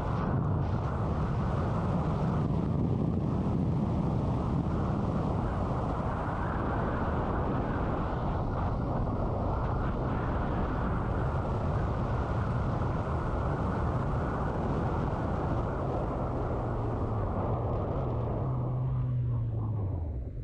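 Motorcycle riding at road speed, recorded on the rider: a steady wind rush over the engine's hum. Near the end the engine note falls steadily as the bike slows down.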